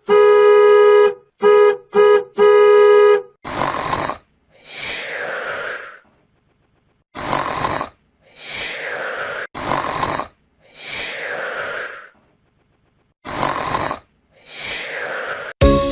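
A steady horn-like tone blaring in four blasts, then four rounds of snoring sound effect, each a short breath in followed by a longer, falling breath out.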